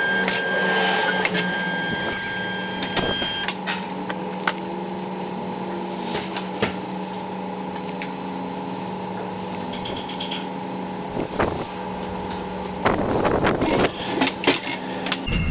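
Steady electric machine hum in a car workshop, with scattered clicks and knocks and a burst of clattering about thirteen seconds in.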